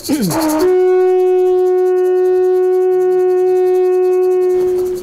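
A horn trumpet blown in one long, steady, loud note, starting about half a second in after a short falling swoop and stopping shortly before the end.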